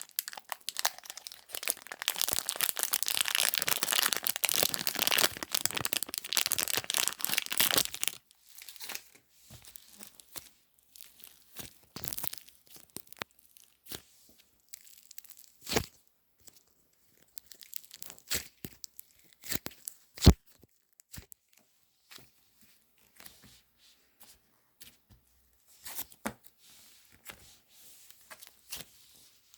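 Hands squeezing and pulling apart modelling clay: a dense crackling, tearing sound for about eight seconds, then scattered small squishes and clicks, with one sharp click about twenty seconds in.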